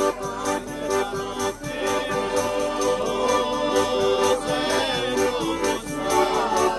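Southern Italian folk music played live: a piano accordion sounding steady chords and melody, a tambourine beating a quick rhythm with its jingles, and a man's voice singing over them.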